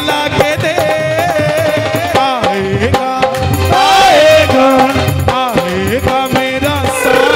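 Live Hindi devotional bhajan: a man singing through a PA over hand-drum percussion and accompanying instruments, with the crowd clapping along.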